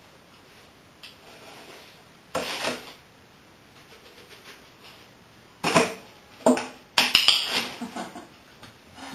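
A box knocking and scraping on a tiled floor as a small dog noses and paws at it: one knock about two and a half seconds in, then a quick run of knocks and scrapes from about five and a half seconds, loudest around seven seconds.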